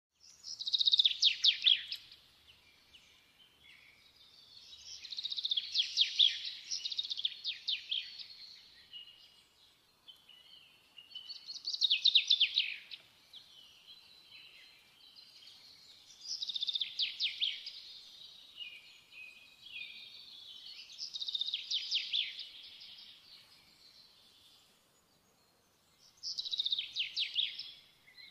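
A songbird singing: short phrases of rapid high trills, repeated about every five seconds with brief pauses between.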